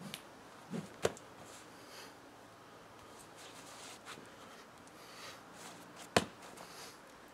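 A straight stick swung through a wushu form, with faint swishes and two sharp knocks. The first knock comes about a second in, and a louder one about six seconds in.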